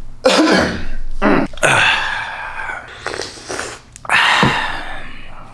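A man's wordless vocal noises: several breathy groans and exhalations, one after another.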